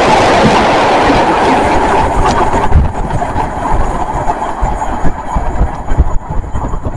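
Imerys china clay hopper wagons of a freight train rumbling past on the rails. The noise fades from about two seconds in as the end of the train draws away, leaving a few low knocks from the wheels.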